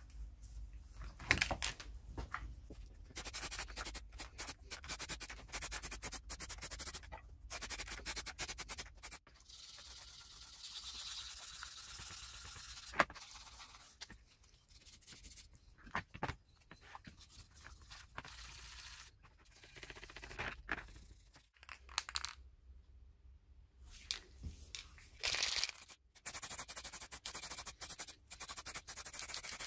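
Aerosol spray paint can hissing in bursts of a few seconds each, with short knocks and rattles between the bursts.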